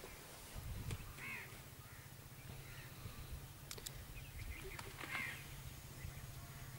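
Crows cawing faintly, with two clearer calls about four seconds apart, over a low steady hum.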